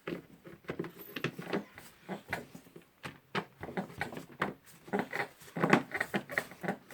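Irregular clicks, taps and rattles of small screws and parts being handled against the angle grinder's plastic housing.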